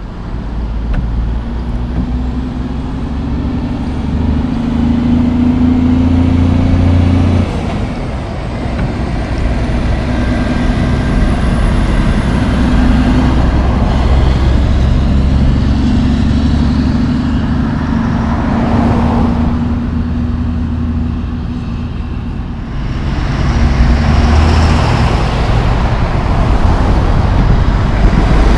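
Heavy Mack diesel trucks' engines running as they pass through an intersection, a steady low drone over road traffic noise. The sound breaks off suddenly about a quarter of the way in and grows louder again near the end as another truck approaches.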